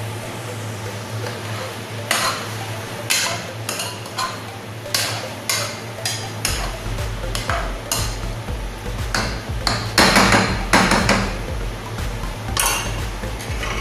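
A metal spoon scraping and knocking against a cooking pot as flaked shark meat is stirred: a dozen or so irregular strokes, the loudest about ten seconds in. A steady low hum runs underneath.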